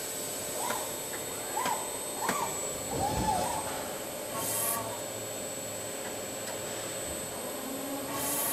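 CNC machine cutting a spinning crankshaft: a steady machining hum with a thin high whine. A few short rising-and-falling squeals come in the first few seconds, and short bursts of hiss come about halfway through and near the end.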